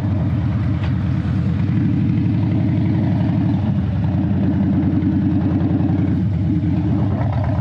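Harley-Davidson Dyna V-twin engine running steadily at low revs or idle with a dense, loud exhaust pulse. A broken exhaust stud has left the exhaust leaking, making it a bit louder than usual.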